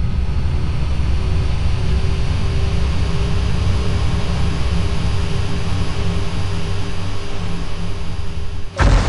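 Flying saucer sound effect: a loud, steady, deep drone with a few held tones and a high hiss, like a hovering spacecraft. Near the end it drops out for an instant and a sudden loud blast follows.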